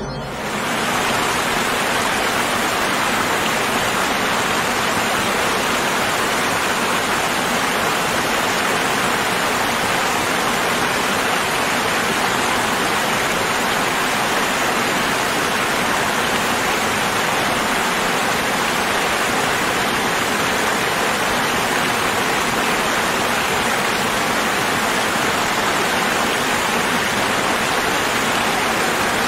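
Water falling from a waterfall in a steady, unchanging rush.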